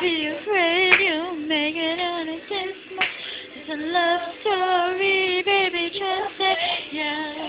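A female voice singing a wordless or unclear tune, holding notes that waver up and down, with short breaths between phrases.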